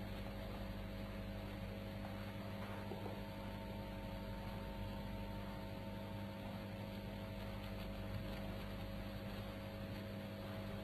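Steady mains hum with faint hiss: the background noise of an old recording.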